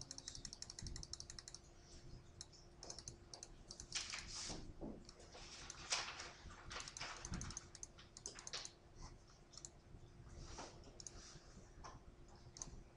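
Faint clicking and tapping of a computer keyboard and mouse, in scattered runs, some of them quick even strings of ticks, over a faint steady hum.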